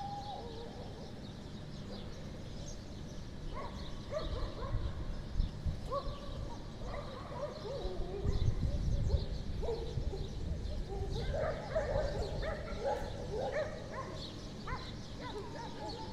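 Many short, pitched animal calls over a steady low rumble, growing busier in the second half.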